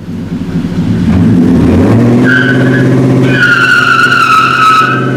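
Pickup truck's 5.3-litre V8 revving hard while the tyres squeal in wheelspin. The engine note steps up about two seconds in, and a drawn-out, wavering tyre squeal follows, loudest in the second half.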